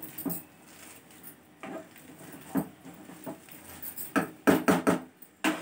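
Metal hand masher pressing and turning soft cooked chana dal in a kadhai, knocking against the pan in irregular taps, with a quick run of louder knocks about four seconds in.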